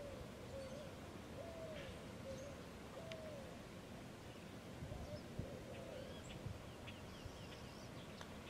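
A bird repeating a short, low arching call several times, mostly in the first half, with faint high chirps from small birds later on, over quiet outdoor background noise.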